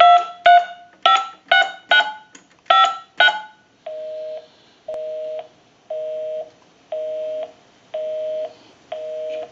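Touch-tone keypad of a single-slot payphone dialing seven digits in quick succession, each press a short two-tone beep. Then a busy signal follows: a low two-tone buzz pulsing on and off about once a second, six times, showing the number called is engaged.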